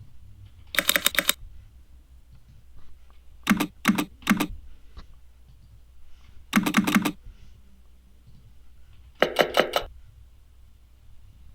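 Keyboard keystroke clicks in four short bursts a few seconds apart, each a quick run of a handful of keypresses; the second burst is three separate strokes. This is a sound test of mechanical switch sounds.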